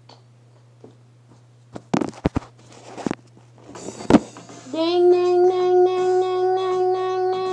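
A few sharp knocks and clatters of toys being handled. Then, about two-thirds of the way in, a battery-operated toy starts up: a steady pitched hum that slides up briefly and then holds, with a fast, regular clicking pulse.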